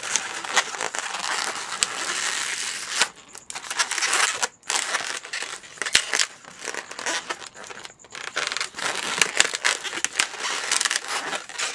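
Inflated Qualatex latex modeling balloons squeaking and rubbing as they are twisted and squeezed by hand, with sharp squeaks and crackles and a few short pauses.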